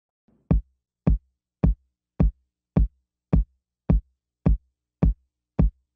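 Background music: a lone electronic kick drum beating a steady pulse, about ten short low thumps a little under two a second, with nothing else playing.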